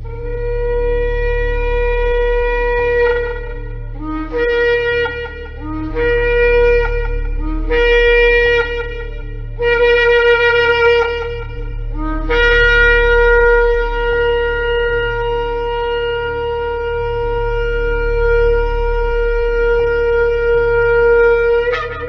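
Shofar blown in a series of blasts: a long blast, three short ones, a longer one, then a very long blast of about nine seconds whose pitch rises sharply at its end. Each blast starts on a lower note and jumps up to a higher one.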